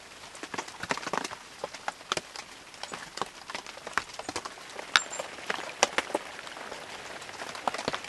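Raindrops tapping on the tarpaulin roof of a photo hide: irregular, scattered sharp taps over a soft rain hiss.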